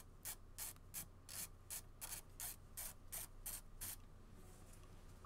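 Hand ratchet swinging back and forth to loosen a 13 mm nut, a faint rasping click-stroke about three times a second that stops about four seconds in.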